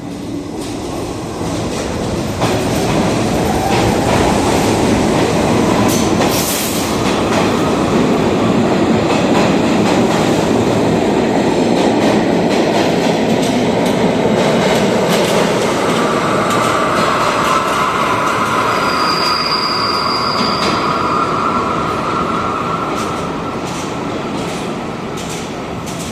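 New York City subway R68A cars pulling out of a station and picking up speed: a loud rumble and clatter of wheels on rail that builds, then eases off near the end. About two-thirds of the way in, a steady howl from car #5034 rises over it, with a brief high squeal.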